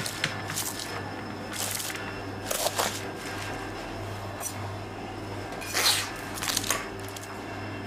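Plastic wrap crinkling in several short bursts as hands fold it around a ball of dough, over a steady low hum.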